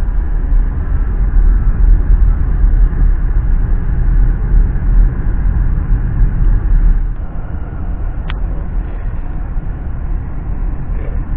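A car driving on a road, heard from inside the cabin: a loud, steady low rumble of tyre and engine noise that eases off a little about seven seconds in. A brief high chirp comes about eight seconds in.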